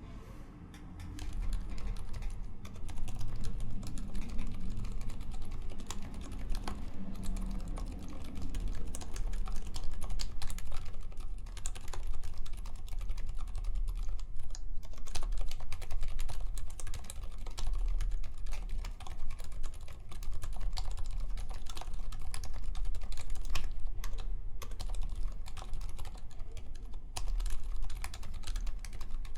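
Steady typing on a mechanical keyboard with silenced MX Zilent switches (Cherry MX Silent Black stems in Zealio housings, heavy 68 g springs, lubed) on a polycarbonate plate under GMK keycaps: a dense stream of muted keystrokes starting about a second in, with a couple of short pauses.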